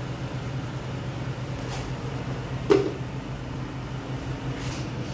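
A single sharp clank of metal on a large aluminium cooking pot a little past halfway, with a short ring, over a steady low hum.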